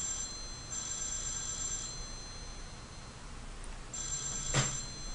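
Electronic telephone ringing in pairs of rings about a second long, with a pause of about two seconds between pairs; a single sharp click about four and a half seconds in.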